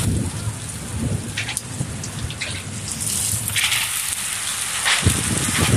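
Heavy rain pouring down onto a paved lane and roofs: a steady hiss, with uneven low rumbling underneath that grows stronger near the end.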